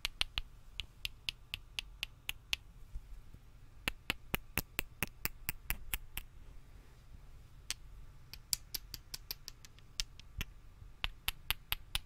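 Cylindrical batteries tapped and clicked against each other close to a microphone. The sharp clicks come in quick runs of about four or five a second, with short pauses between runs.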